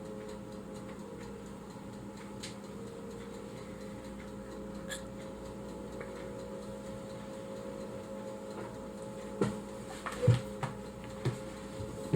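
Steady low hum with a few faint ticks, then, about nine seconds in, a run of sharp, irregular clicks and knocks.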